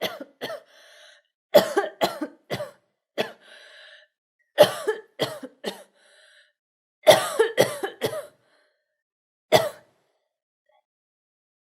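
A girl coughing in repeated fits of three to six quick coughs, with faint breaths drawn in between fits; a single last cough comes near ten seconds in.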